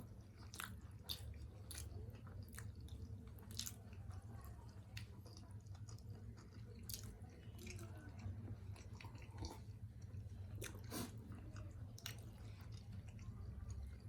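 Close-up chewing of steamed chicken momo dumplings, with irregular wet mouth clicks and smacks. A steady low hum sits underneath.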